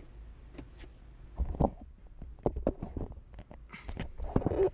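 Hands working a cable through the truck's center-console trim: scattered clicks, knocks and rustling, with louder rubbing scrapes about a second and a half in and again near the end.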